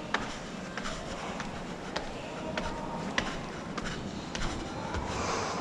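Footsteps climbing a staircase, a sharp step about every half second over a steady background hiss.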